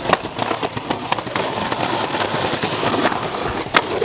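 Skateboard wheels rolling over concrete pavement: a steady rolling noise scattered with small clicks, and one sharp clack near the end.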